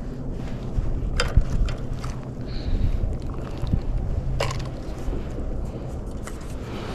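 Wind rumbling on the microphone, with a couple of sharp clicks about a second in and again past the middle.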